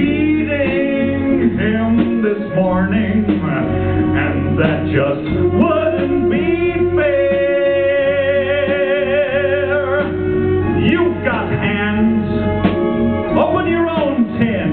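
A male singer performing a pop song with a live band behind him, holding one long note with vibrato midway through.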